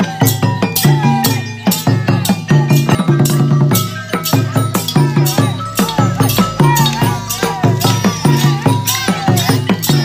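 Lively procession music: a hand-beaten barrel drum keeps a steady driving beat with bright rattling percussion over it and a wavering melody line above.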